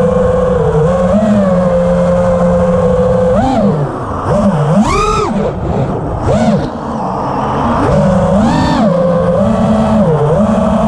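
Electric motor whine from the radio-controlled aircraft carrying the camera, heard on board. A steady hum swings sharply up and down in pitch several times with the throttle, starting about three and a half seconds in and again near nine seconds, before settling back to a steady hum.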